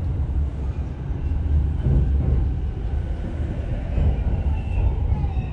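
Electric commuter train running along the line, heard from inside the front car: a steady low rumble.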